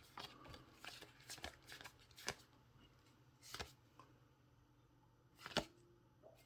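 Baseball trading cards being flipped through by hand: faint, scattered flicks and slides of card stock. A few slightly louder flicks stand out, the loudest about a second before the end.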